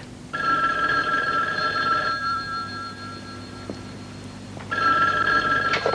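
Landline telephone ringing twice, each ring a steady two-tone ring about two seconds long with a pause between, and a click near the end.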